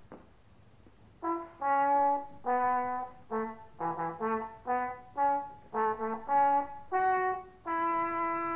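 Brass fanfare: a dozen or so short, separate notes in quick succession, ending on one long held note about a second before the end.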